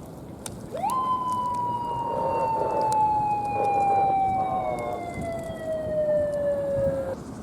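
Police siren giving a single wail. The pitch climbs sharply about a second in, slides slowly and steadily down for about six seconds, then cuts off.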